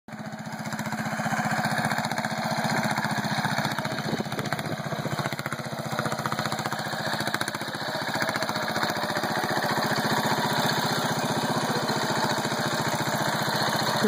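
Wisconsin air-cooled engine on an Ottawa Buzzmaster tree saw running steadily at speed, spinning its circular blade, with a rapid even firing beat.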